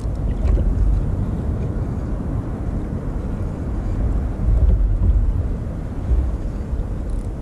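Wind noise on the microphone, a steady low rumble, with sea water washing against a kayak's hull.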